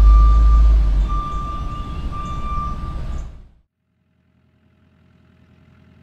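Large truck engine running with a reversing beeper sounding in repeated beeps; both cut off abruptly about three and a half seconds in, leaving near silence.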